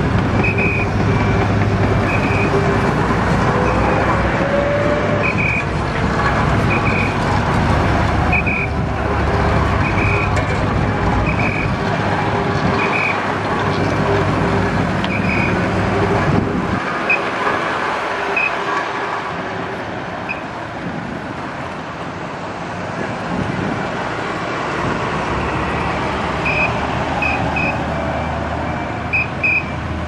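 Diesel engine of a truck crane running under load, with a short high warning beep repeating about once every 1.2 seconds while the crane works. The low engine hum drops off about halfway through, and the beeps stop then and start again near the end.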